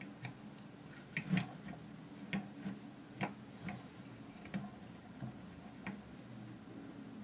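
Light, irregular metal clicks and taps as small rifle parts are handled and an Allen wrench is pressed against a spring-loaded plunger to push it into its captive pin.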